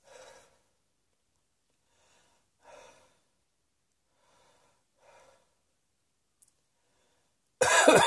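A person breathing softly a few times, then breaking into a loud run of harsh, voiced coughs near the end.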